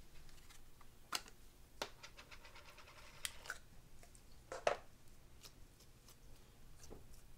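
Slime being mixed and kneaded by hand: faint sticky clicks and pops, a handful of separate ones with a quick run of tiny clicks around two to three seconds in.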